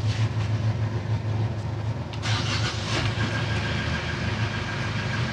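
Twin Yanmar marine diesel engines idling steadily just after being started, a low even drone. A rushing hiss joins about two seconds in.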